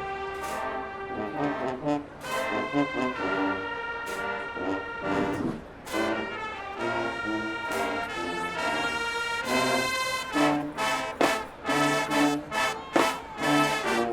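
Marching band playing, led by loud brass (trombones and trumpets) holding chords and moving lines. Drum strikes punctuate the music and come thick and rhythmic from about ten seconds in.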